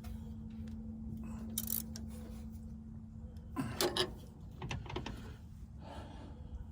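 Wrenches clinking and clicking on the clutch linkage's adjustment nut and jam nut as they are turned, a few short metallic knocks, loudest a little past halfway. A steady low hum underneath stops a little past halfway.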